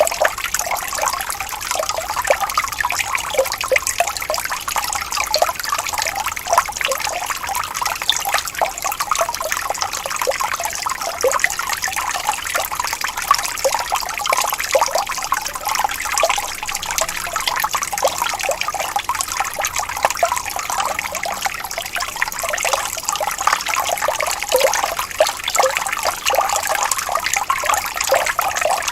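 Gently rippling stream: a steady babble of running water, full of small gurgles and plops.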